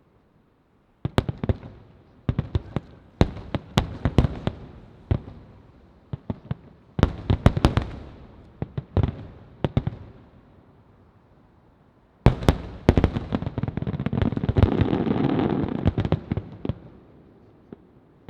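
Aerial firework shells bursting in volleys of sharp bangs with echoing tails. About 12 seconds in, a dense barrage of overlapping bursts builds into a continuous rumble, then fades out.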